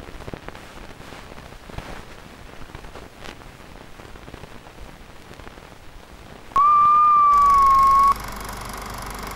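Old-film sound effect under a countdown leader: a crackly hiss with scattered clicks, then, about six and a half seconds in, a loud beep about a second and a half long, sagging slightly in pitch, followed by a steady hum.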